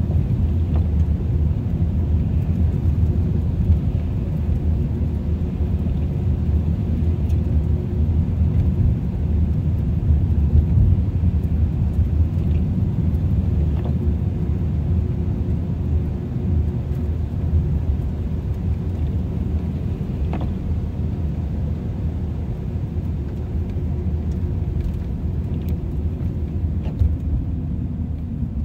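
Steady low road and drive rumble of a moving car, heard from inside the cabin, with a faint steady hum above it and a couple of faint small clicks.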